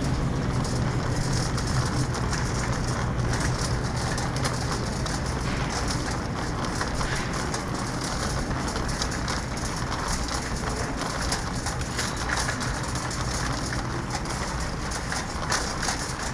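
Wire shopping cart rolling over a hard store floor, its wheels and metal basket rattling in a steady crackle of fine clicks, over a low hum.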